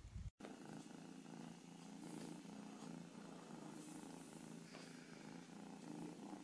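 A kitten purring softly and steadily.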